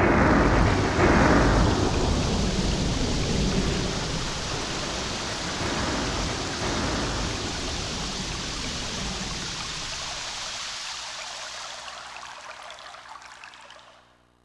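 Thunder sound effect from a TJ Media PRO-3000 karaoke machine's Roland SC-88 sound module: a sudden crash of deep noise that slowly dies away over about fourteen seconds.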